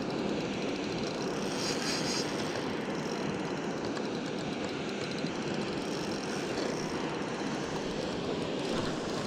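Steady rushing noise of wind buffeting the microphone, with a short patch of fine high clicking about two seconds in.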